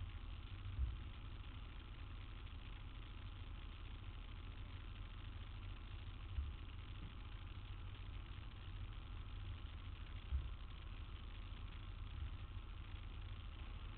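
Low steady rumble of city street traffic and idling engines, with a few dull thumps about a second in, near the middle and toward the end.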